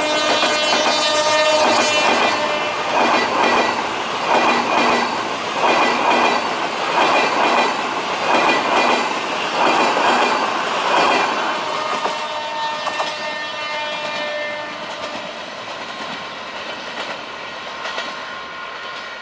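Passenger train coaches passing close at speed: a held tone fades in the first couple of seconds, then wheels clatter over the rail joints in loud clack-clack pulses about every second and a half, and the sound fades away as the train recedes.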